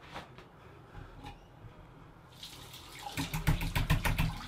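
A bathroom tap starts running about halfway through. From about three seconds in, a disposable razor is knocked rapidly against the side of the sink basin under the running water, to clear shaved stubble out of the blade.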